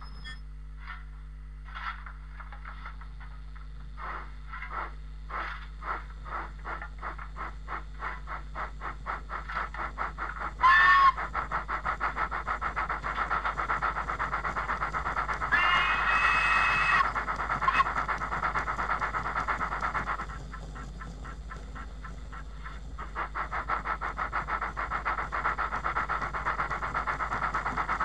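Ivatt 2MT steam locomotive sounds, recorded from the real engine, played by a model's DCC sound decoder: exhaust chuffs that start slow and quicken to a fast even beat, a short whistle, then a longer one a few seconds later. Past the middle the chuffing drops away to a quieter drift for a few seconds, then picks up again, over a steady low hum.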